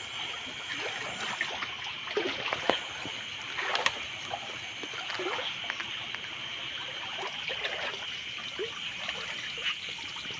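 Shallow stream water splashing and trickling as someone wades through it, with a couple of sharp knocks a few seconds in.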